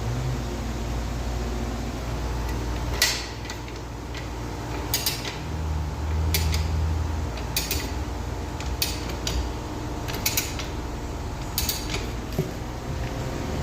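Short, irregular creaks and squeaks from a Rabaconda manual tire changer and the tire rubber as a motorcycle tire is worked onto its rim, over a steady low hum.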